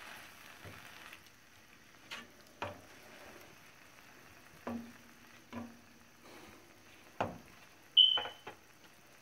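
Plastic spatula stirring thick grated-carrot halwa in a nonstick frying pan, over a faint sizzle at first, then several separate knocks and taps of the spatula against the pan. The loudest is a short clink with a brief high ring about eight seconds in.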